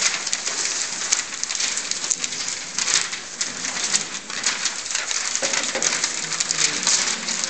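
Many sheets of printed paper rustling and crackling continuously as several people unfold, shuffle and sort them on tables.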